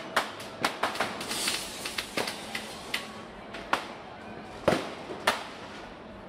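New Year's fireworks and firecrackers going off across the city: scattered sharp bangs and crackles at irregular intervals, thickest in the first few seconds, with the two loudest bangs about a second apart near the end.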